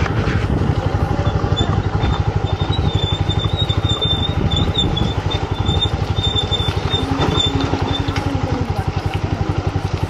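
Motorcycle being ridden, its engine running with a steady, even, fast beat.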